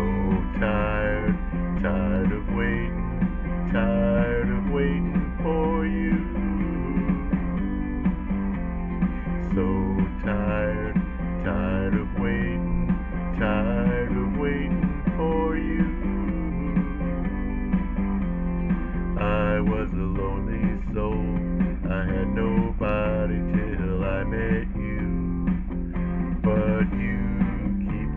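Guitar music: plucked and strummed guitar notes over a steady low backing.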